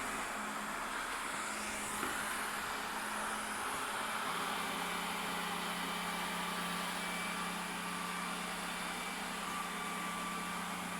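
Ecovacs Deebot 900 robot vacuum running with a steady whir. A low hum under it drops slightly in pitch about four seconds in.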